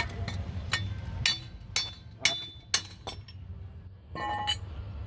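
Metal tools and parts clinking: about six sharp, ringing clinks in the first three seconds, then a short cluster of clinks a little after four seconds.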